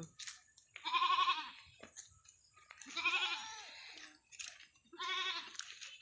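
Goat bleating three times, each call wavering and under a second long, about two seconds apart.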